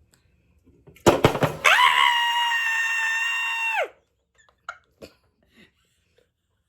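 A person's high-pitched scream held at one steady pitch for about two seconds, dropping in pitch as it breaks off. Just before it comes a short burst of loud crackling knocks.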